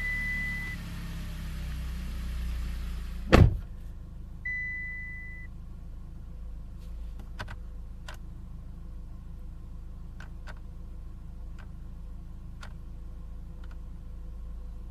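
Mitsubishi Lancer Evolution X's turbocharged four-cylinder engine idling steadily after a restart. A car door slams shut once, loudly, about three seconds in. A steady electronic beep sounds briefly at the start and again for about a second shortly after the slam.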